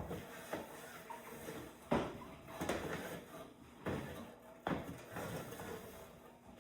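Dirty wood shavings being scraped and scooped out of a bird cage: a run of rustling scrapes and knocks, one every second or so.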